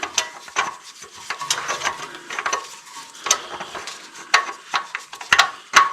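Scattered sharp metal clicks and light scraping, about eight in all with the loudest near the end, as a threaded part fitted with a freshly oiled O-ring is worked into its hole on a zero-turn mower's hydraulic system by gloved hands.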